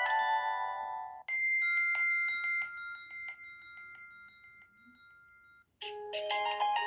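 Samsung Galaxy A3 stock ringtones playing one after another. A melody of short ringing notes cuts off about a second in. A bright chime-like tone with a few held high notes then rings and fades over several seconds. After a brief gap, a new ringing melody starts near the end.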